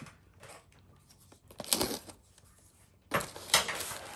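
Plastic packaging rustling as a bag of toy parts is handled: a brief rustle just under two seconds in, then steadier rustling from about three seconds in.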